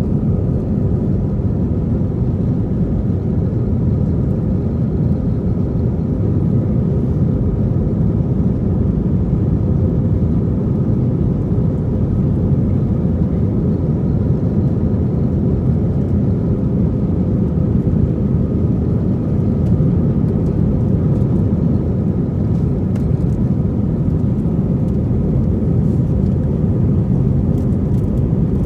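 Steady, loud low rumble of a passenger plane's cabin: engine and airflow noise with a faint steady hum on top, unchanging throughout.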